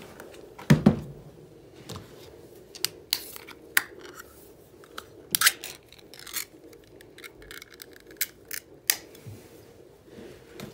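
Scattered sharp clicks and light metallic taps from a small tin of wet cat food being handled over a ceramic food bowl, with a louder thump about a second in.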